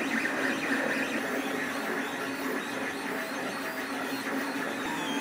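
FDM 3D printer running a print: the steady whir of its stepper motors and the print-head cooling fans.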